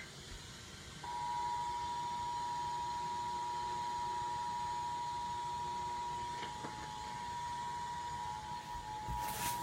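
Emergency Alert System two-tone attention signal on broadcast radio: two steady tones sounding together, starting about a second in and holding for about eight seconds. It signals that an emergency alert, here a flash flood warning, is about to be read.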